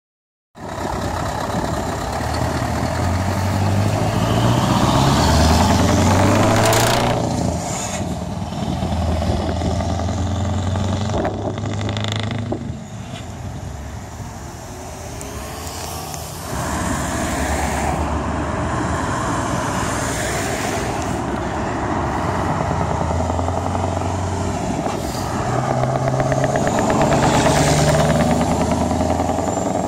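Scania R500 truck with an open exhaust pipe, its V8 diesel pulling away and accelerating hard through the gears. The loud exhaust note climbs, drops at each shift, and swells again as the truck passes close by.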